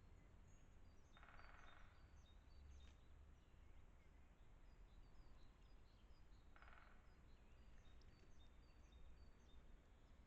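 Faint woodland birdsong: many short, high chirps from small birds, with two brief rattles about five seconds apart, over a steady low rumble.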